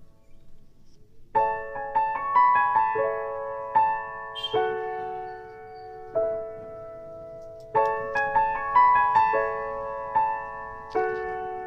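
Background piano music: a gentle melody of struck notes that ring and fade, starting after a quiet first second and repeating its phrase about halfway through.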